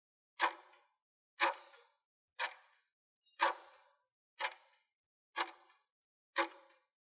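Clock-like ticking sound effect marking a countdown timer: seven sharp ticks, one a second, each dying away quickly.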